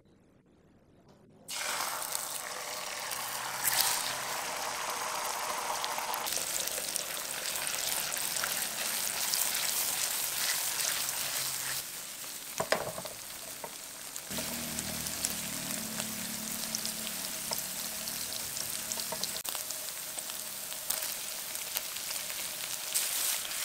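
Eggs and silken tofu frying in hot oil in a pan: a steady sizzle that starts suddenly about a second and a half in, with stirring.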